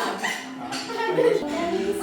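Background music, with a voice faintly mixed in.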